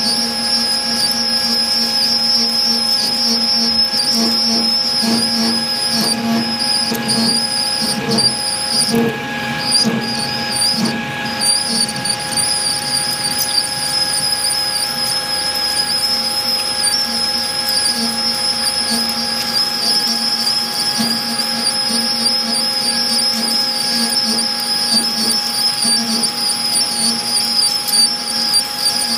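Manual lathe running while a carbide form tool cuts an RTJ ring groove in Inconel: a steady, high-pitched whine from the cut over several steady lower machine tones.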